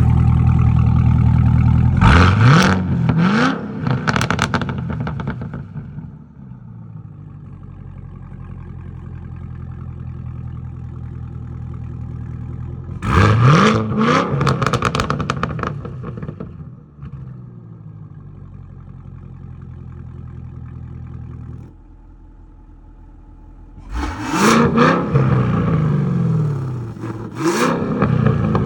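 Cadillac CT5-V Blackwing's supercharged 6.2-litre LT4 V8 through a Corsa Xtreme valved cat-back exhaust: it fires up suddenly with a loud flare, then idles, with several quick throttle blips that rise and fall in pitch, a cluster of three about two to four seconds in, one in the middle and two near the end.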